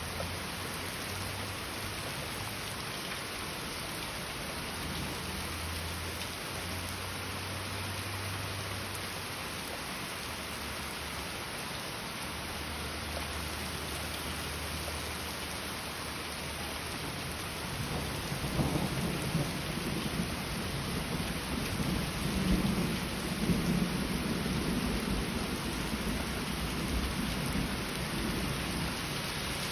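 Heavy rain falling steadily, with a long roll of thunder rumbling from about two-thirds of the way in.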